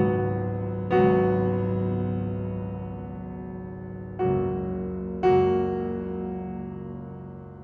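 Piano playing slow, sustained chords: four chords struck about a second in, about four seconds in and about five seconds in, each left to ring and fade away.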